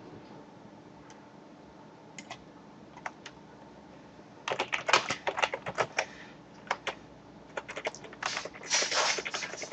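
Computer keyboard typing: a few scattered key clicks, then two quick runs of keystrokes, one about halfway in and one near the end.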